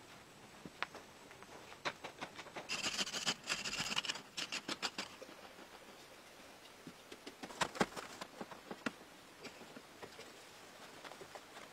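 Loose dry soil and sand being scraped and shifted by hand and a stick, heard as scattered light taps and crunches, with a denser stretch of scraping about three seconds in.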